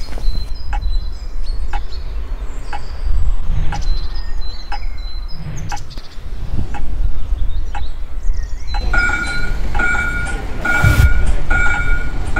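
Outdoor street sounds: a steady low traffic rumble with a regular tick about every two-thirds of a second and scattered bird chirps. From about nine seconds in, a repeating electronic beep sounds about twice a second.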